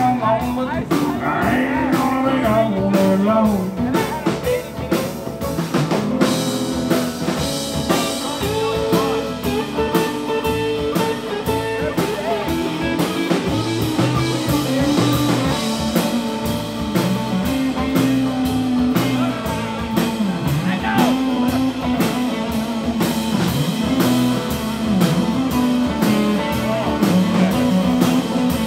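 Country rock band playing live: electric guitars over a drum kit keeping a steady beat.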